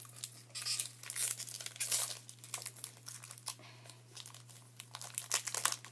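Irregular crinkling and rustling of a Magic: The Gathering pack's wrapper and cards being handled, thinning out to a few scattered rustles in the middle and picking up again near the end.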